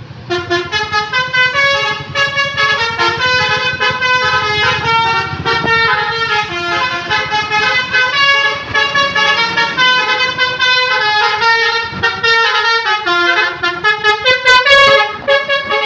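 Multi-tone telolet bus horn playing a stepping melody, several notes sounding together and changing without a break, over the low rumble of a coach's engine.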